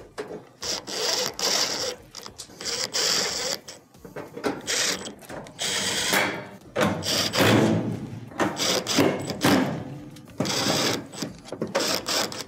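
Cordless drill driving Phillips screws into the sheet-metal rear panel of an electric range, running in a series of short runs, one screw after another.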